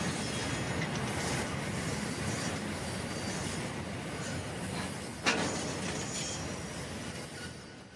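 Freight train boxcars rolling past on a curving track: a steady rumble of steel wheels on rail, with one brief sharp clank about five seconds in.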